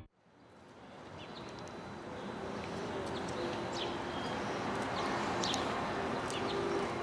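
Outdoor ambience fading in from silence over the first two seconds: a steady wash of background noise with scattered short, high bird chirps.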